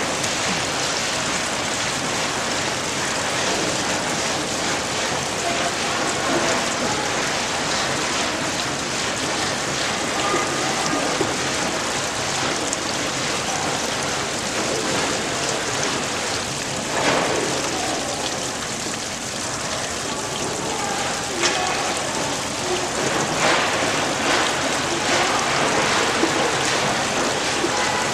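Steady rush of water running and splashing, as from a shaking table (gravity concentrator) running with wash water, with a few sharp knocks in the second half.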